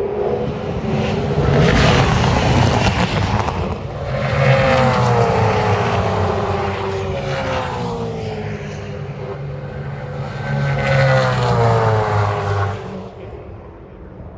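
Race cars passing at speed on the circuit, several in succession, with two loud passes whose engine note falls in pitch as each car goes by; the sound drops away about 13 seconds in.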